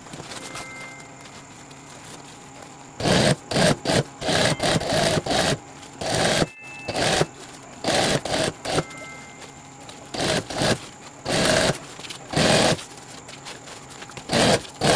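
Industrial sewing machine stitching through the thick layers of a bag panel in many short start-stop bursts, starting about three seconds in.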